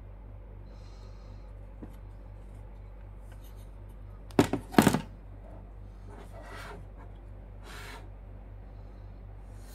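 Hands handling a motherboard: a quick cluster of sharp knocks about four and a half seconds in as the board is turned over, then soft rubbing and rustling, over a steady low hum.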